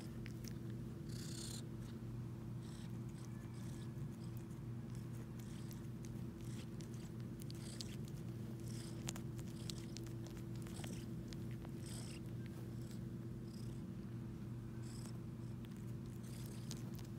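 Domestic cat purring steadily while suckling on the fur of a shaggy rug as if nursing, with faint soft clicking and sucking noises every second or so.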